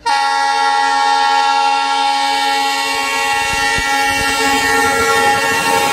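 Train horn sounding one long, steady blast that starts abruptly and cuts off sharply near the end.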